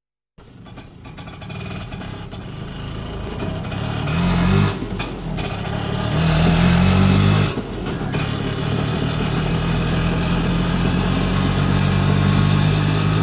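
Motor vehicle engine running, revving up briefly twice in the first half and then holding a steady, higher speed.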